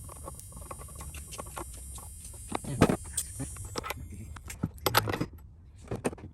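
Irregular metallic clicking and clinking of hand tools and small parts being handled during engine repair work, with louder knocks about three and five seconds in, over a steady low hum.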